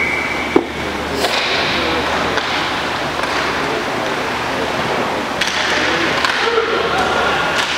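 Roller hockey play in a large echoing rink hall: a steady wash of noise with distant players' calls, and a sharp clack about half a second in, followed by a few fainter knocks.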